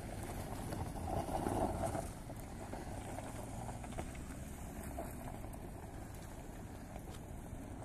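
Cars and a van driving on an unpaved gravel road, a steady wash of tyre and engine noise that swells as one vehicle passes closer between one and two seconds in.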